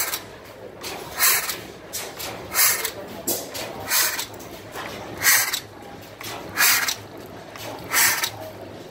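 Swan stationary gas engine running slowly and evenly, with a sharp exhaust puff about every second and a third.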